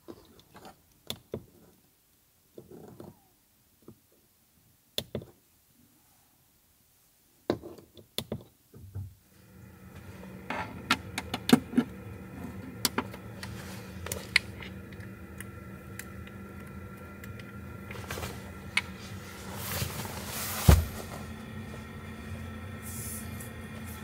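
Close handling sounds: scattered small clicks, taps and rustles, with sharper clicks as a cable plug is pushed into a portable power station. From about ten seconds in a steady electrical hum runs under the handling, and a heavy thump comes about 21 seconds in.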